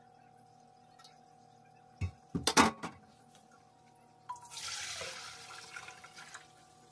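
A few sharp clanks of stainless-steel kitchenware about two seconds in, then malt water (yeotgireum water) poured from a stainless bowl into a pot, splashing for about two seconds.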